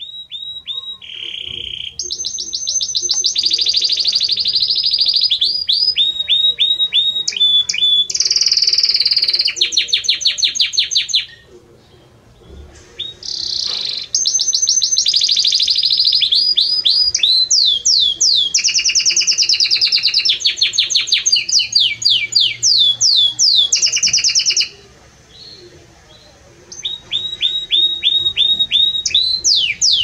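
Belgian canary singing a loud song of fast trills and rapidly repeated notes, in long phrases broken twice by short pauses.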